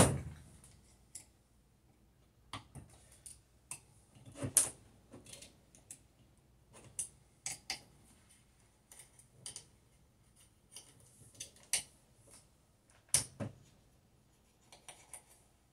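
Irregular small clicks and taps of small metal parts being handled by hand, with a louder clack about four and a half seconds in and again near the end.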